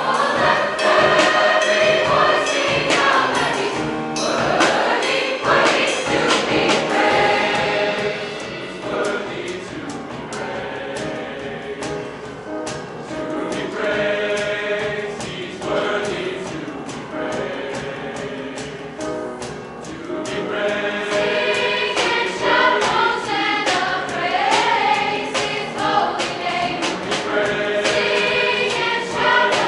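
Large junior-high mixed choir singing an upbeat gospel-style song, accompanied by piano and drums with steady drum strikes. The singing grows softer about a third of the way in and swells back to full volume about two thirds of the way through.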